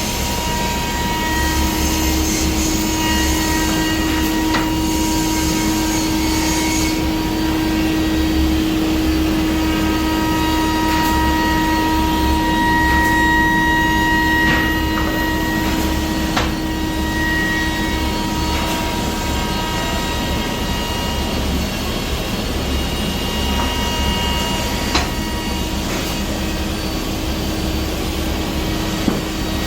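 Biesse Rover A five-axis CNC machining centre running: a steady spindle whine with several held tones over constant machining and extraction noise, and a few brief clicks.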